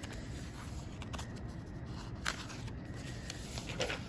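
Sheets of paper being handled and shifted on a tabletop: a few soft rustles and light taps over a low, steady background noise.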